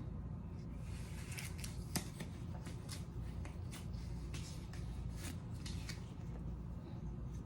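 Scattered soft, crisp ticks and rustles of hands handling something small, irregularly spaced, over a low steady hum.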